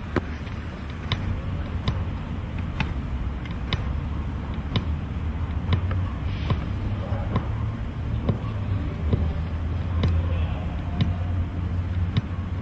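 A football being juggled: a sharp thud of foot or body on the ball about once a second, over a steady low rumble.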